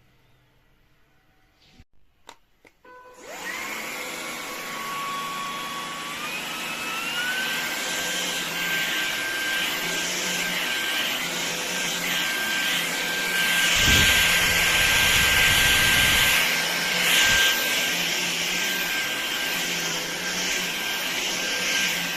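A few clicks, then a LEVOIT cordless stick vacuum starts running with a steady rush and a whine that steps up in pitch twice and then holds steady. In the middle a louder stretch with a deep rumble lasts a couple of seconds.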